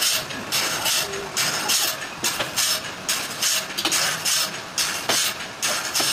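Sawmill machinery running with an even, rhythmic hissing pulse, about two and a half surges a second, and a few sharp clicks in the second half.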